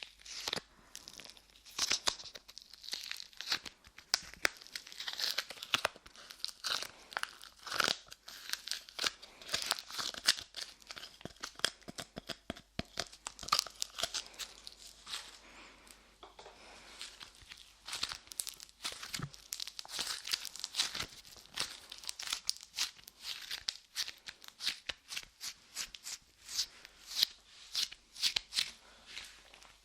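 Light clay being pressed onto and pulled off a microphone's ears, making dense, irregular sticky crackles and pops.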